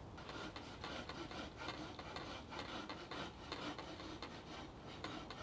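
A pencil scratching over split green wood, tracing the outline of a spatula blank in quick repeated strokes, about three a second.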